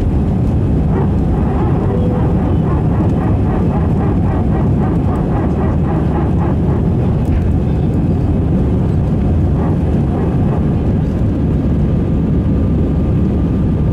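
Airbus A320-216's CFM56-5B turbofan engines running at climb thrust just after takeoff, heard inside the cabin as a steady low-pitched noise.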